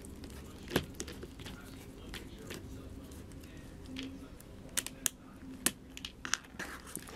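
Scattered sharp clicks and light taps of small plastic parts and a hex driver as hands work on an RC drift car's front hub and wheel, several of them close together in the second half.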